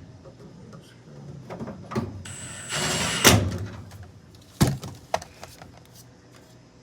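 Work noises from handling furnace parts: a short rustling scrape about two and a half seconds in, then several sharp knocks. The loudest knock comes about three seconds in.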